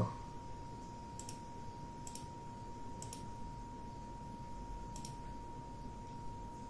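Computer mouse clicking, about five sharp clicks spread over a few seconds, two of them in quick succession, over a faint steady high hum.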